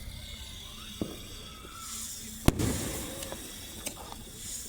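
Fireworks going off: a small bang about a second in, then a loud bang about halfway through that echoes, followed by a few faint pops.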